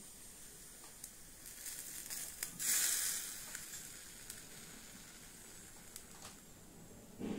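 Small steaks sizzling on a miniature charcoal grill: a steady high hiss that swells into a louder burst of sizzle about two and a half seconds in, with a few light clicks of the tongs and a soft knock at the very end.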